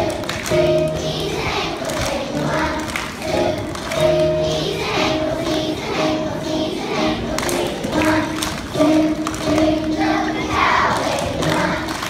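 A large children's choir singing a song together, the notes held and moving on steadily.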